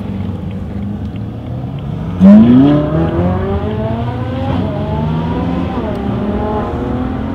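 Ferrari 458 Italia's V8 accelerating hard. A steady low engine rumble gives way, about two seconds in, to a sudden loud rise in the engine note. The note climbs steadily in pitch, dipping briefly twice at the upshifts.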